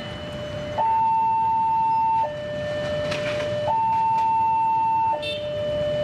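Electronic two-tone warning alarm alternating between a high and a low tone, each held about a second and a half, over a low rumble.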